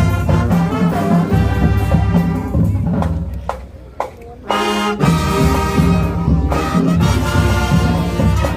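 High school marching band playing, with brass and drums over a steady low pulse. About halfway through the band drops away briefly, a short held brass chord sounds, and then the full band comes back in.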